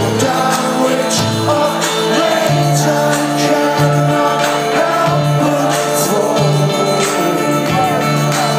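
Live band playing: held chords over a bass note that repeats about once a second, with steady percussion hits and some singing.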